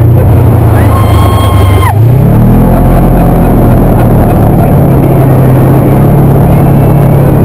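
Polaris RZR side-by-side's engine running under way, its pitch climbing as it speeds up about two seconds in, then holding steady. A brief high-pitched squeal sounds about a second in.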